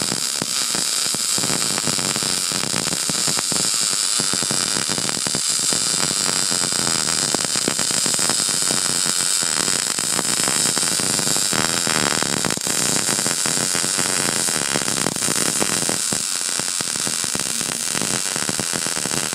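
Electric welding arc laying a continuous bead on a steel bracket: a loud, steady crackling hiss.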